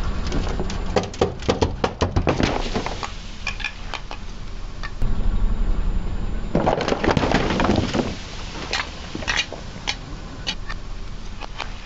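Car tyre rolling over a row of full aluminium soda cans, crushing them with a run of sharp cracks and crunches as the metal buckles and splits. The loudest crunching comes in the middle.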